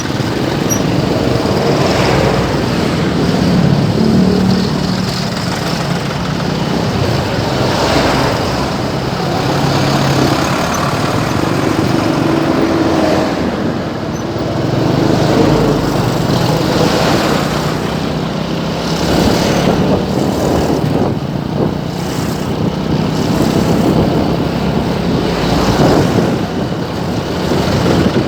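Congested road traffic: engines of slow-moving cars, trucks and motorcycles running continuously, with vehicles swelling louder as they pass close every few seconds.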